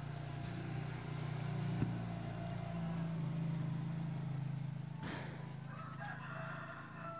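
A cat growling in one long, low, drawn-out sound during a standoff with another cat.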